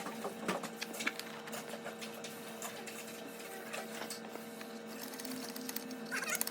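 Scattered light metallic clicks and taps of hand tools being worked on a Subaru EJ25 engine during teardown, over a steady background hum, with a quick run of rapid clicks near the end.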